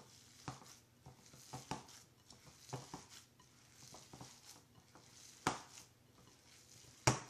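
Gloved hand kneading and squishing a chopped-chicken and thread-noodle stuffing in a glass bowl: soft, irregular squelches and taps. There is a sharper knock about five and a half seconds in and a louder one near the end.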